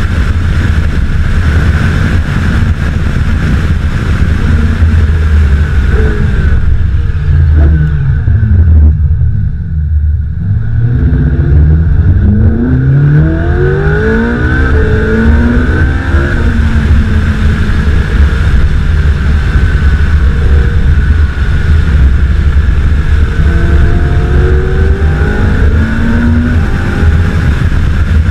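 Ferrari 458 Speciale's naturally aspirated V8 running under way. Engine speed falls about a quarter of the way in and the sound briefly drops away off the throttle, then the revs climb steeply under hard acceleration. The revs rise again briefly near the end.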